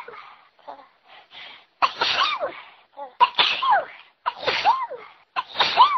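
A person sneezing in a fit: four sneezes about a second apart, each ending in a falling 'choo', with short sharp breaths in before them.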